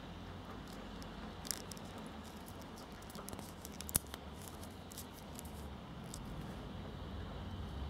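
Rotating bezel of a Casio MRW-200H watch being turned by fingers: a run of small, irregular clicks, with one sharper click about halfway through.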